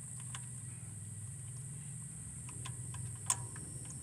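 Faint clicks and light metal knocks of 3/8-drive socket extensions being handled and fitted together deep in an engine bay, with one sharper click about three seconds in. A steady low hum runs underneath.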